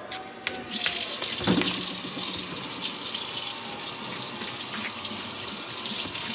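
Water running from a kitchen tap in a steady hiss, turned on just under a second in, with a single clunk shortly after.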